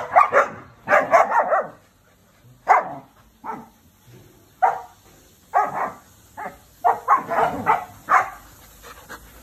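Standard poodles barking: a string of short barks, some coming in quick clusters, with brief quiet gaps between.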